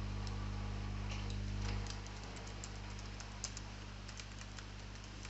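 Computer keyboard keys clicking lightly and irregularly as someone types, over a steady low electrical hum.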